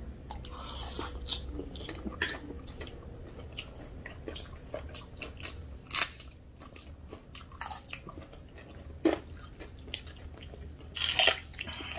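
Close-up chewing and crunching of crisp fried snack food, chatpate and onion pakoda. It is a steady run of small crisp crunches, with a few louder bites about halfway, near three-quarters, and near the end.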